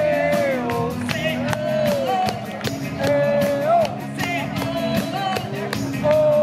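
Live rock band playing: a singer's voice over electric guitar, bass guitar and a drum kit keeping a steady beat.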